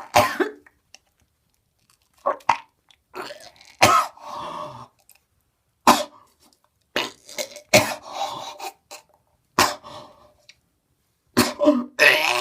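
A person coughing, hacking and retching in a string of short, separate bursts, acting out coughing up an owl pellet.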